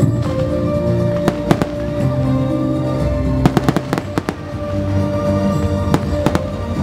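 Fireworks going off in a series of sharp bangs and crackles, most crowded in the middle, over music that plays steadily throughout.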